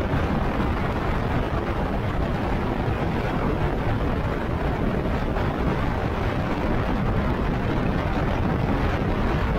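Steady, loud wind rush buffeting the microphone while riding an e-bike at speed along a paved road.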